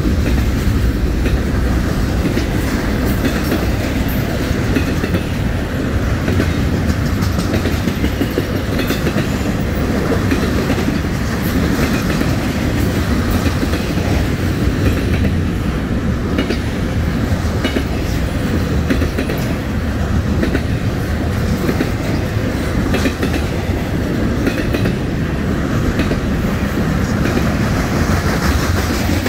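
Norfolk Southern intermodal freight train's double-stack container well cars rolling past at steady speed: a continuous loud rumble of steel wheels on rail, with clicking over the rail joints.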